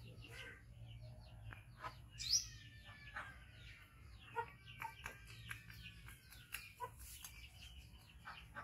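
Birds chirping, with thin whistled calls gliding in pitch throughout, and scattered light clicks.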